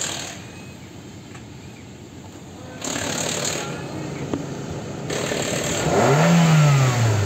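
Chevrolet Aveo's 1.2-litre B12D1 petrol engine idling, then revved once about six seconds in, its pitch rising and falling back toward idle.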